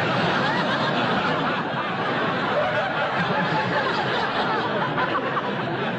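Studio audience laughing loudly and steadily at a punchline, many voices at once.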